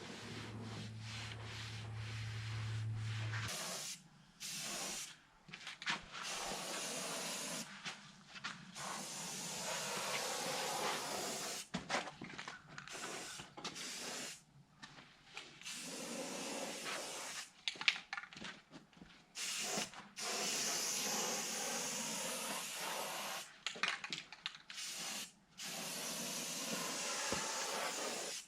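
Paint being sprayed onto steel headers in repeated hissing passes of one to three seconds each, with short breaks between them. A low hum sounds under the first few seconds.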